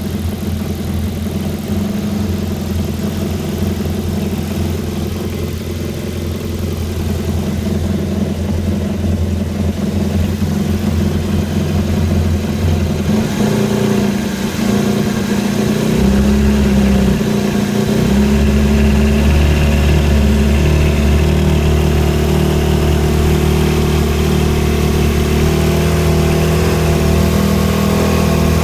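Yamaha VXR personal watercraft engine running steadily, its pitch stepping up about halfway through and holding there. The owner suspects an engine knock in the sound and is unsure whether it is normal.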